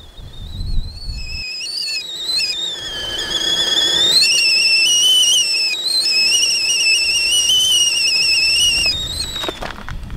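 Stainless stovetop kettle whistling at the boil: a warbling whistle that builds up, rises in pitch, holds loud, then stops about nine seconds in. A few clicks or knocks follow near the end.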